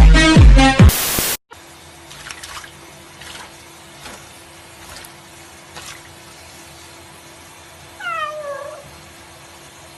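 Loud electronic music with a heavy beat cuts off about a second in. After quiet background with a few faint clicks, a cat meows once, a short call falling in pitch, near the end.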